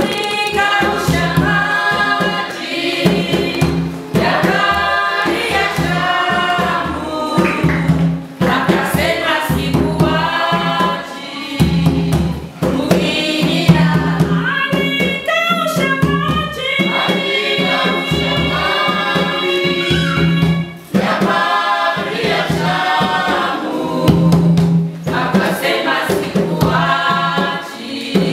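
Church choir singing a Swahili gospel song with drum accompaniment.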